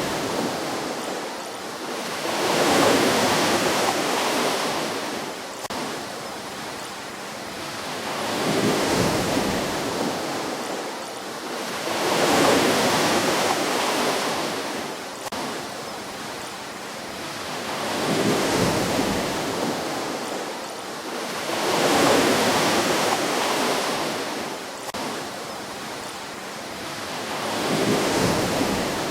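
Ocean waves breaking gently and washing up a shore, the surf swelling and falling away about six times, every four to six seconds.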